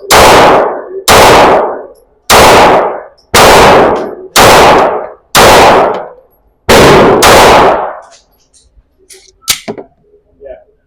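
Eight 9mm pistol shots in a string, about one a second, the last two closer together, followed by a few light clicks and a sharp tap.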